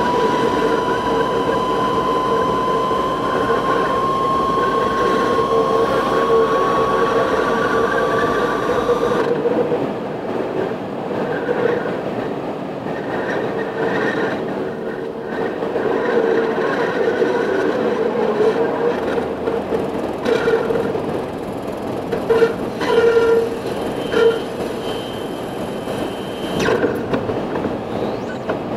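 Steady vehicle noise inside a car's cabin, with a high whine rising slowly in pitch. About nine seconds in, the whine cuts off suddenly and the low rumble drops away.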